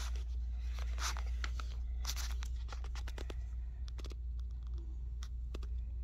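Scattered scratchy rustles and clicks, irregular and thickest in the first few seconds, over a steady low hum.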